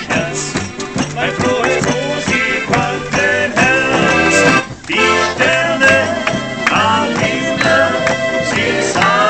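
Button accordion and acoustic guitar playing a folk tune together, with a short break in the music about halfway through.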